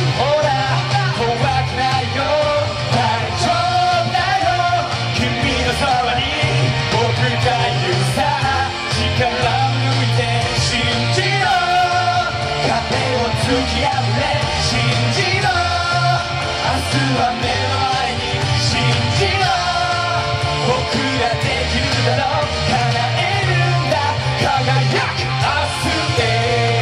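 Men singing a pop song into hand microphones over backing music with a steady beat and a bass line.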